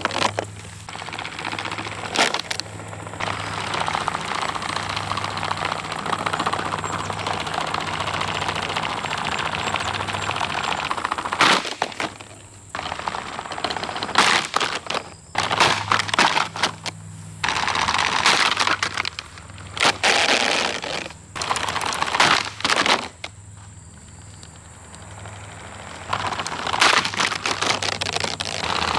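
Mainstays box fan being wrecked: a steady motor hum under dense plastic rattling and cracking, with sharp loud impacts in clusters several times.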